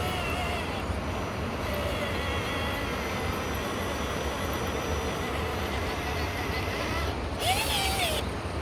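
Electric RC rock crawler's motor and gears whining steadily as it climbs over rocks, with wind rumble on the microphone. Near the end the whine rises and falls in pitch briefly.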